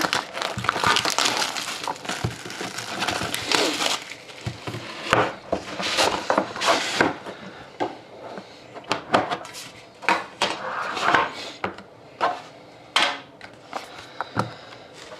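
Plastic shrink wrap being cut and pulled off a cardboard trading-card box, with dense crinkling in the first few seconds. This is followed by scattered scrapes, clicks and knocks as the cardboard box is opened and the inner box is handled.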